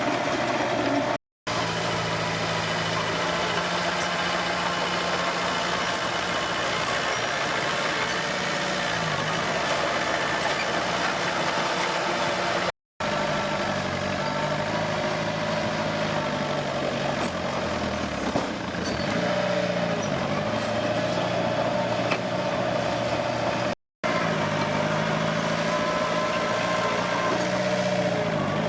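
Komatsu D21P bulldozer's diesel engine running steadily under a steady higher whine, its note dipping briefly and recovering a few times. The sound cuts out to silence three times, each for a split second.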